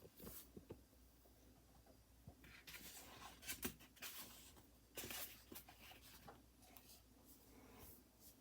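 Faint scattered rustles and light clicks of something being handled, close to near silence.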